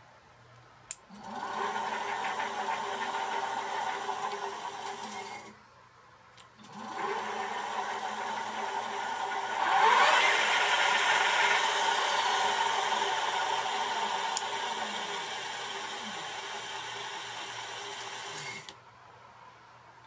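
E-bike electric drive motor spinning the wheel with no load, a whirring whine. It starts just after a click, stops for about a second near the middle of the first half, then starts again, rises in pitch to its loudest about halfway through, slowly eases off and cuts off suddenly near the end.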